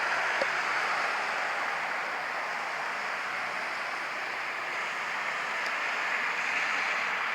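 Steady hiss of road traffic, with no siren tone in it.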